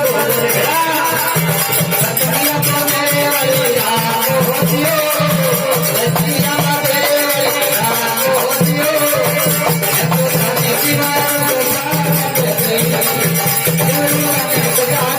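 Rajasthani folk bhajan music in a passage without words: a wavering melody over a steady pulsing beat, with jingling percussion throughout.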